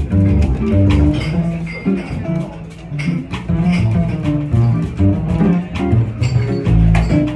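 Archtop jazz guitar being plucked, with a bass line underneath; the playing thins out briefly about two to three seconds in.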